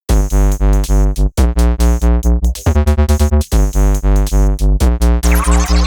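Electronic background music: synthesizer over a steady drum-machine beat of about four low hits a second.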